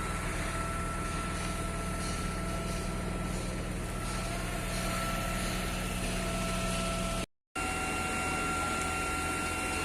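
Diesel engine of a truck-mounted concrete boom pump running steadily, a low hum with a held whine over it. It drops out for an instant about seven seconds in and returns with a slightly different, higher whine.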